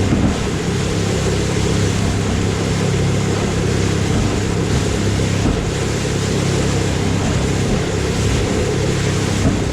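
Boat motor running steadily underway, with a constant rush of wind and water over it.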